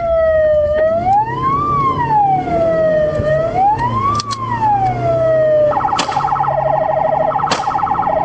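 Police car siren, heard from inside the pursuing car, in a slow wail rising and falling every couple of seconds. About five and a half seconds in it switches to a fast pulsing yelp. The car's engine runs underneath, and there are two sharp clicks near the end.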